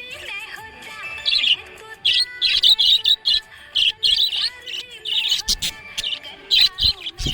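Budgies chirping and twittering in quick bursts over background music, with a couple of low thumps near the end.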